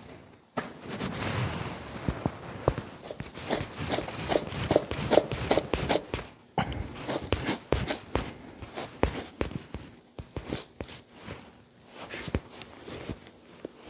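Two-handled fleshing knife scraping fat and membrane off an elk hide on a fleshing beam, in repeated short rasping strokes, with a couple of brief pauses.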